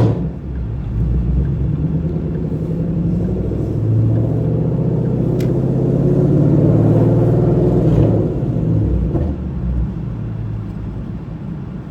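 Straight-piped 5.0 V8 exhaust rumbling at low speed. It swells louder a few seconds in, then settles back down after about nine seconds.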